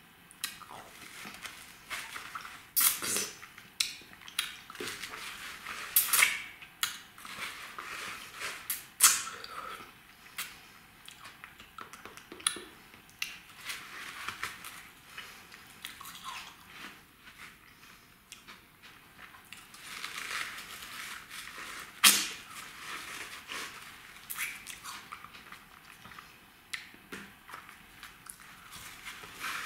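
Close mouth sounds of eating a frozen Calippo ice lolly: sucking and slurping at the ice and biting into it, with irregular sharp crunches and smacks, a few of them much louder than the rest.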